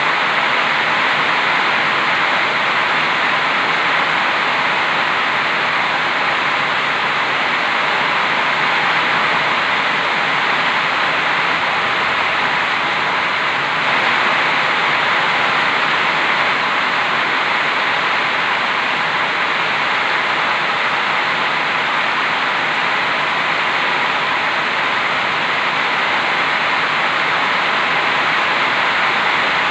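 Heavy rain falling steadily: a loud, even hiss of a downpour that doesn't let up.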